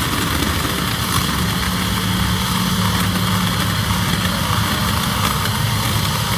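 A saw's motor running steadily and without a break.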